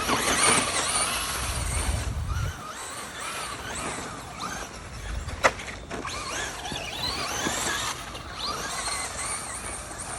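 Electric motor of a 2WD Traxxas Slash RC truck whining as the throttle is worked up and down, with its wheels churning through wet grass and mud. There is one sharp click about five and a half seconds in.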